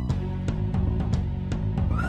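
Cartoon action soundtrack music with a driving beat over a low bass line.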